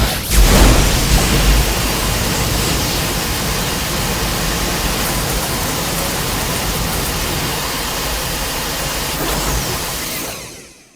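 Kaiju sound effect: a deep boom that opens into a long, loud rushing noise, held steady and fading out near the end.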